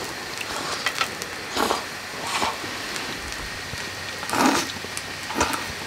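People slurping kalguksu noodles from steel bowls: about five short slurps a second or so apart, with a few light clicks in between.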